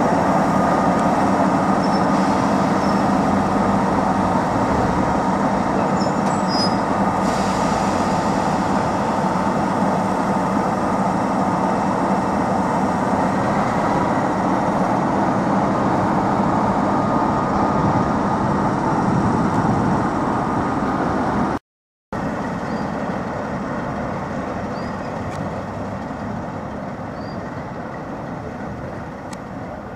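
Several heritage diesel locomotives coupled together, including a green Class 45 'Peak', engines running steadily with a held hum as they pass slowly on the line. After a brief dropout about two-thirds of the way through, the engine sound fades as the locomotives move away.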